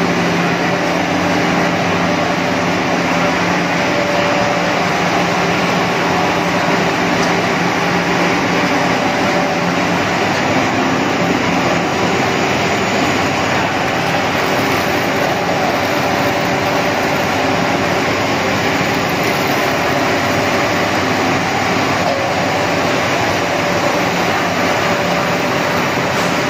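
Snack-food extrusion production line running: a loud, steady mechanical whir and hum of motors, fans and conveyors, with a few faint steady tones running through it.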